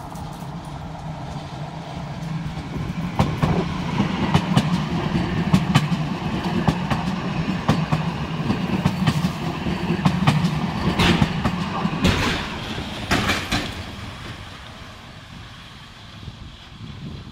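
Siemens Avanto tram-train passing close by: a low steady running hum with sharp wheel clacks over the track, building over the first few seconds, loudest in the middle and dying away near the end.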